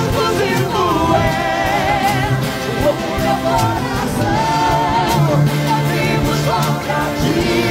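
Brazilian gospel worship song sung live in Portuguese by a female and a male vocalist over instrumental accompaniment with a bass line and drum hits. The voices sing long held notes with a wide vibrato.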